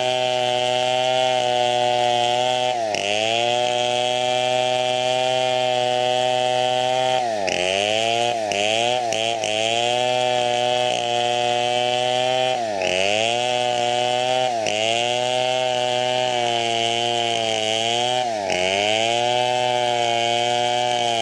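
Stihl two-stroke chainsaw running at high revs while cutting teak wood. Its engine pitch dips briefly and climbs back about five times.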